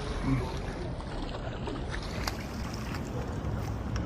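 Steady wind rumble on the microphone and water noise around a kayak, with a few faint clicks.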